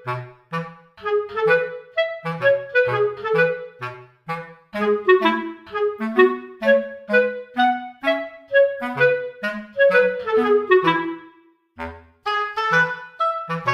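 Background music: a bouncy instrumental tune of quick short notes over a plodding bass line, breaking off briefly near the end before starting up again.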